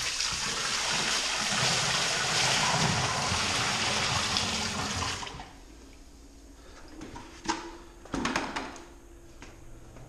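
A bucket of water poured into a sump pit: a loud gush and splash that starts suddenly and stops after about five seconds, followed by a few knocks.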